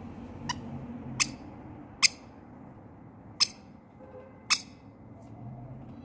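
Rainbow lorikeet giving five short, shrill screeches at uneven gaps, the loudest about two seconds in, over a low steady hum.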